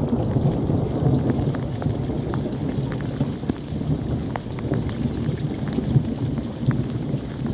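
Heavy rain falling, with close drops ticking sharply, over a low rumble of thunder that slowly fades away.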